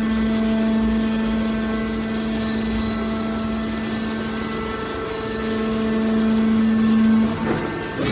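Hydraulic baler running: a steady mechanical hum from its pump and motor, with a strong steady pitch. The hum breaks off about seven seconds in, followed by a few short knocks.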